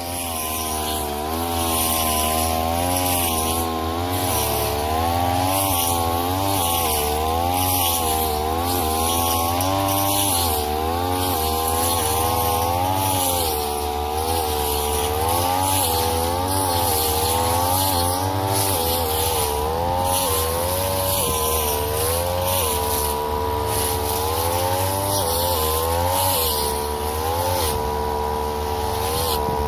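Brush cutter (grass trimmer) engine running at high speed. Its pitch dips and rises again and again as the throttle and cutting load change.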